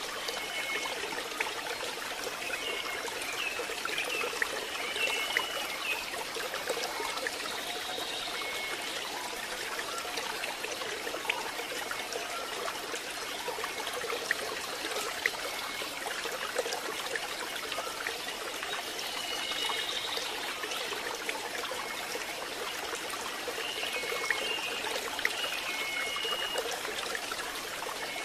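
Steady rain falling, with a few faint short high chirps now and then.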